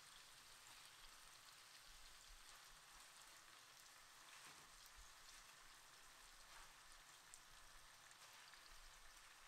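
Faint, steady sizzling from a frying pan of paneer and potato curry cooking on a gas hob, barely above silence.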